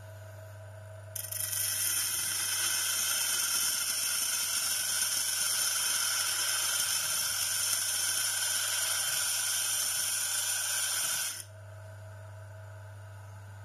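A high-speed spinning tool working against material: a loud, steady, hissing high-pitched grind that starts sharply about a second in and stops abruptly about ten seconds later, over a steady low hum.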